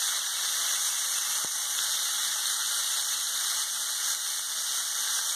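Broccoli sizzling and steaming in a hot cast-iron skillet with a little water just added to make steam: a steady hiss, with one light tick about a second and a half in.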